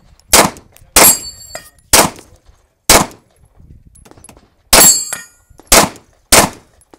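Glock 19 9mm pistol fired seven times at about one shot a second, with a longer pause near the middle. After some shots, the steel plate targets ring as they are hit.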